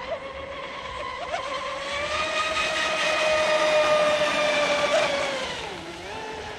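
Electric motor of a battery-powered RC catamaran racing boat whining at speed. The whine swells and rises slightly in pitch from about two seconds in, holds, then fades and drops in pitch near the end.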